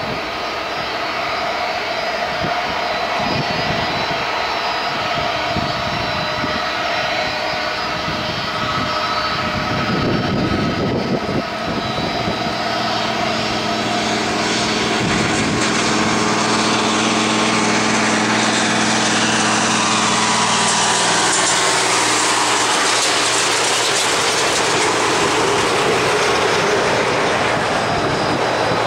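Airbus A330 airliner's jet engines running as it taxis past at close range, a steady whine over a dense rush of engine noise. From about halfway a set of tones slowly falls in pitch and the overall sound grows a little louder.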